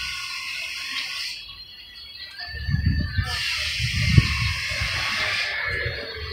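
Birds chirping, with gusts of wind rumbling on the microphone from about two and a half seconds in.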